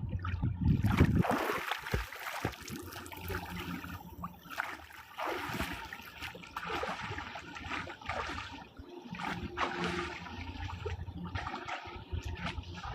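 Swimming-pool water sloshing, trickling and splashing irregularly as a person moves about in it, after a louder low rumble in the first second.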